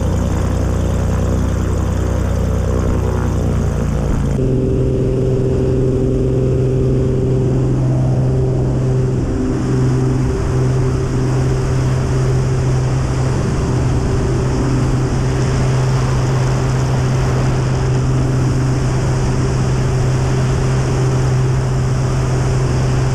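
A Mooney M20K's turbocharged Continental TSIO-360 engine and propeller running at takeoff power through the takeoff roll and climb-out, heard from outside the cabin near the propeller. It is a loud, steady drone with a strong low hum. The sound's tone changes abruptly about four seconds in.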